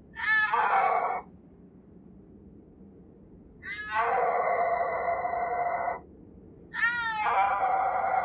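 Snow leopard yowling: three drawn-out calls, each opening with a falling pitch and then held, the first short and the next two longer.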